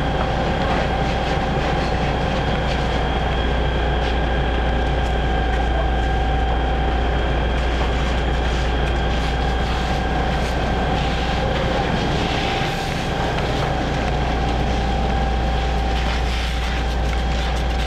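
A fire engine's engine and pump running steadily to feed the hoses: a loud, even rumble with a constant whine over it.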